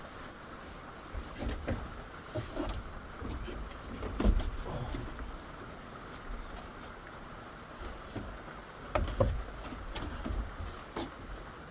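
Irregular thumps and knocks of a person moving about on a trailer's floor, over a steady hiss. The loudest thump comes about four seconds in, with two more close together near nine seconds.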